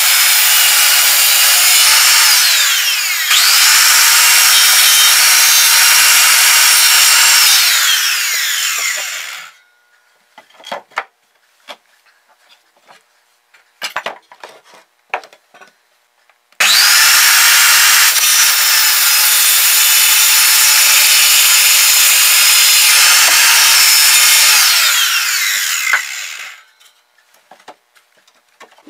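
Handheld circular saw cutting through old wooden floorboards in two long cuts. Each cut ends with the motor whine falling away as the blade spins down, and about three seconds in the motor briefly dips and picks up again. Between the cuts come scattered light knocks of boards being handled.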